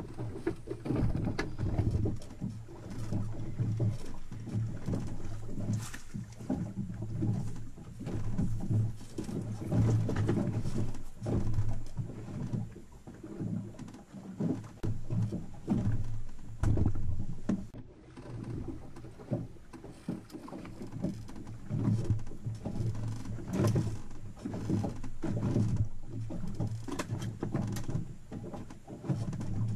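Open-air noise on a small boat at sea: uneven wind and water noise that swells and dips, over a low steady hum, with scattered knocks.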